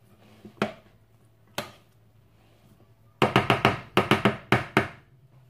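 A metal spoon clinks and scrapes against a ceramic bowl as chopped salad is tossed. There are a couple of single clinks, then a quick run of about a dozen clinks in the second half.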